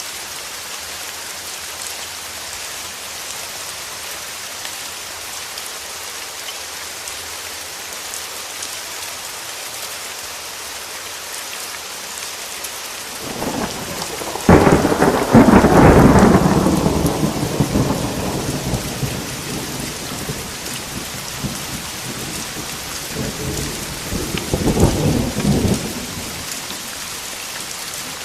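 Steady rain with thunder: a rumble builds about halfway through, peaks loudly and dies away over several seconds, and a second, weaker rumble follows near the end.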